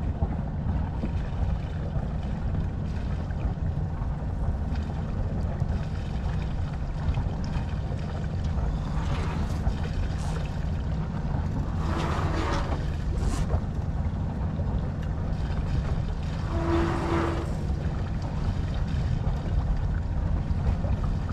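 Wind buffeting the microphone in a steady low rumble aboard a sailboat under way downwind, with the wash of water along the hull rising in a few brief splashing rushes.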